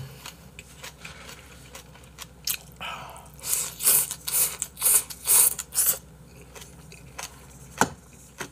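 Eating sounds close to the microphone: a quick run of about six slurping and chewing noises as a person shovels food from a bowl into his mouth with chopsticks, then a single sharp knock near the end.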